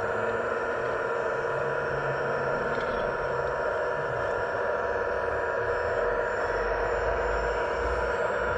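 Small electric motors of radio-controlled scale construction models running with a steady dense whine.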